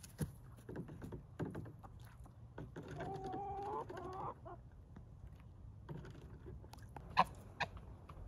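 Domestic chickens clucking: a wavering, drawn-out call of about a second and a half near the middle, then two short sharp clucks near the end, the first of them the loudest sound.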